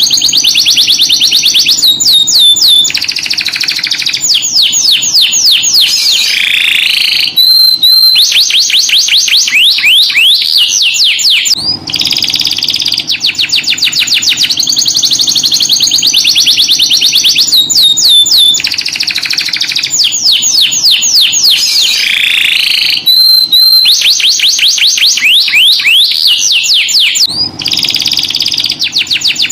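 Domestic canary singing: rapid high trills and rolls, phrase after phrase with only brief breaks. The same song sequence repeats about every 12 seconds.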